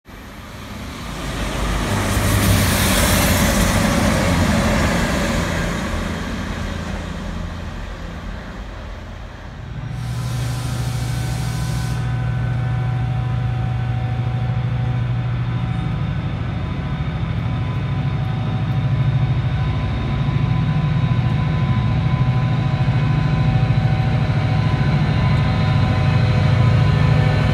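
A CrossCountry Voyager diesel multiple unit approaches and runs through, a rushing noise that swells for a few seconds and then fades. About ten seconds in the sound changes sharply to a steady diesel engine hum that grows louder near the end as a TransPennine Express Class 68 diesel locomotive draws into the platform.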